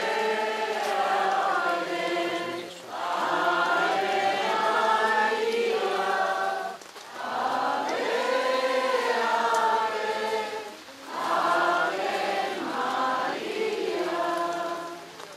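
A group of people singing an Italian hymn to the Holy Spirit together, in several long, slow phrases with brief pauses for breath between them.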